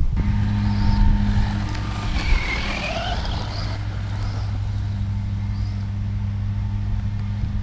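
A motor running steadily with a low, even hum that keeps one pitch throughout.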